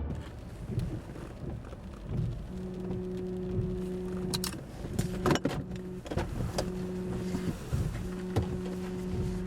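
Rumbling noise of a vehicle on the move, with a few sharp knocks and a steady low droning tone that comes and goes in long pulses of one to two seconds from a few seconds in.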